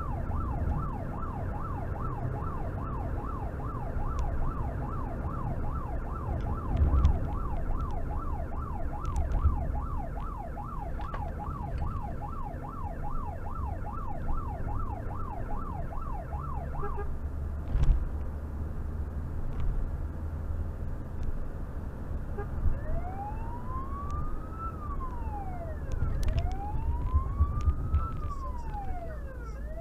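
Fire service response vehicle's siren, heard from inside the vehicle over engine and road noise. A rapid yelp, about two sweeps a second, cuts off abruptly about halfway through. A few seconds later a slower wail begins, rising and falling about every three seconds. A single knock is heard just after the yelp stops.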